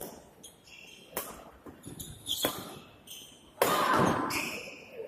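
Badminton rackets hitting a shuttlecock in a fast doubles rally: a series of sharp hits, with short squeaks of court shoes between them. About three and a half seconds in comes a louder, longer burst of noise, the loudest sound.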